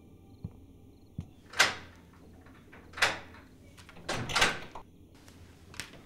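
A door being opened: a handful of sharp clunks and rattles from the handle and latch, with a longer rattle a little past the middle.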